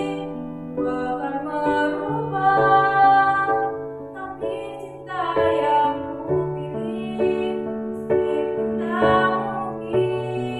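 A girl singing a slow, tender pop ballad solo over instrumental accompaniment, holding long notes.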